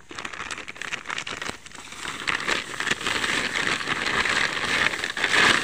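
Dry rice straw rustling and crackling as it is gathered up by hand, growing louder from about two seconds in.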